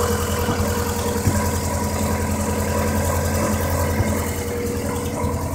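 Vauxhall Corsa SRi's x14xe 1.4-litre 16-valve four-cylinder engine, running on Yamaha R6 motorcycle carburettors, idling steadily with a misfire, a few irregular knocks breaking the beat. The misfire was traced to a broken HT lead and the engine running lean.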